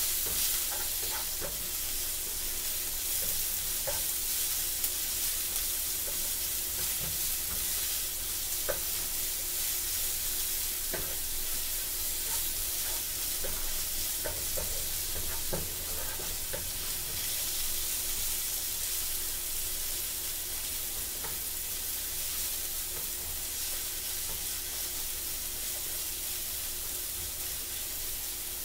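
Sliced onions sizzling steadily in a frying pan, stirred with a wooden spatula that gives scattered light knocks and scrapes against the pan.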